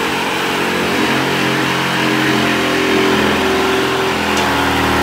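A handheld power tool running continuously under load, its pitch shifting slightly as it works.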